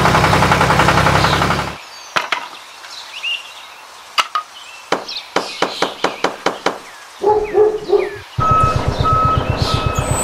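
A toy tractor's engine sound runs and cuts off, then birds chirp while a run of sharp taps comes about three a second as wooden posts are set. Near the end come three short animal calls, then the engine sound returns with a repeating high beep like a vehicle reversing.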